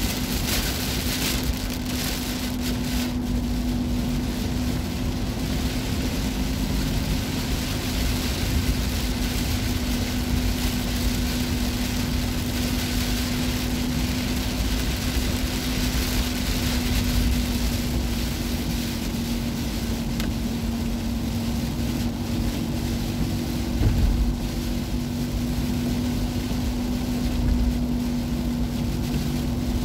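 Heavy rain on a moving car and tyres on a wet road, heard from inside the cabin, as a steady wash of noise with a steady low hum under it. There is a low thump about three-quarters of the way through.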